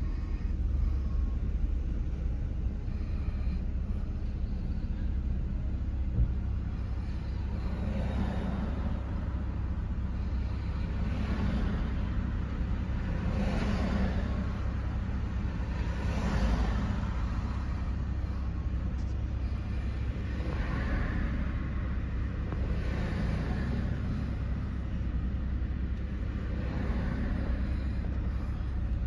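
Car engine idling, heard from inside the cabin as a steady low rumble while the car sits nearly stationary. A few brief swells of street noise rise and fade over it in the middle of the stretch.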